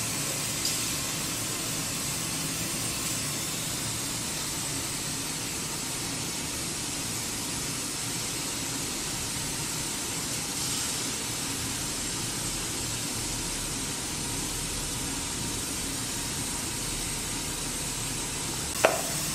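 Hot tea poured in a thin stream from a glass teapot into a plastic jug: a steady trickling hiss. A single sharp knock comes near the end.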